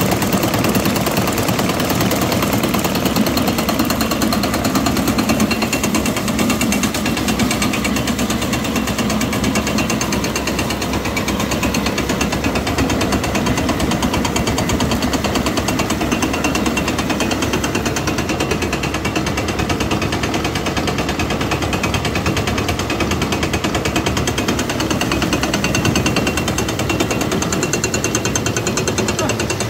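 Meadows grist mill grinding dried corn, belt-driven by a 1950 Farmall Cub tractor: a loud, fast, continuous mechanical rattle, with the tractor engine running steadily underneath.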